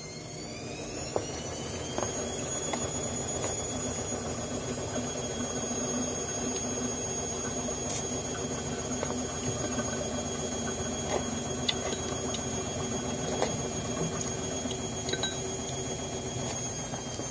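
A high electric whine that rises in pitch over about the first two seconds and then holds steady, like a motor spinning up to speed, over a low steady hum. Scattered small clicks run through it, typical of chopsticks against a mug and eating.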